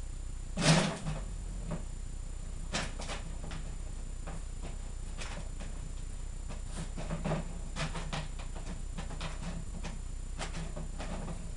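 Plastic bottles on a wooden treat-dispenser frame being knocked and spun by a West Highland White Terrier's nose: a loud clatter about a second in, then a scattered string of lighter knocks and rattles.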